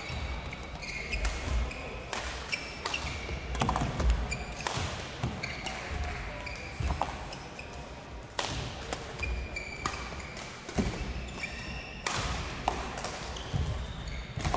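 Badminton rally: sharp racket hits on the shuttlecock and thuds of feet on the court, with short high squeaks of shoes on the court floor.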